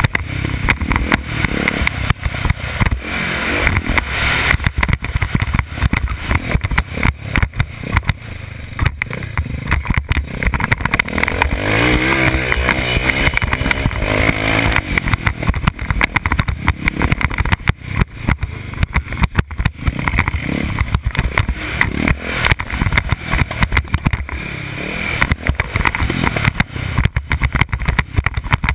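Motocross bike engine revving hard as the bike is ridden round a dirt track, heard from on board with heavy wind noise and knocks breaking up the sound. About twelve seconds in, the engine note rises and falls clearly for a few seconds.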